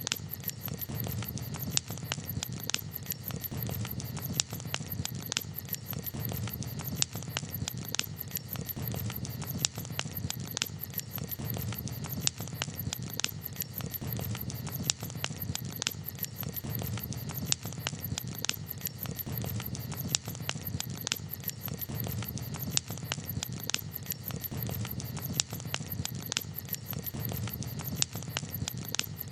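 Wood campfire crackling, with sharp, irregular pops over a steady low rumble.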